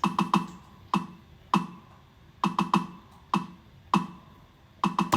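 Programmed percussion layer of an Afrobeats beat played back alone: short, dry, pitched knocking hits that die away fast, in a syncopated pattern with quick triplets of hits between single ones.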